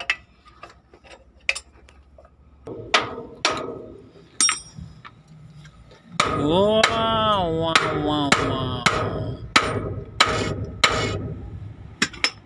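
A dozen or so irregular hammer blows on steel at a Hino truck's front steering knuckle, some with a metallic ring, as the kingpin is knocked loose. For about three seconds in the middle a loud pitched sound rises and falls over the strikes.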